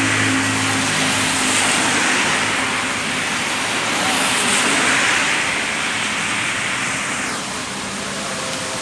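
Vehicle passing on a rain-wet road over a steady hiss of rain and tyre spray; its engine fades away over the first few seconds.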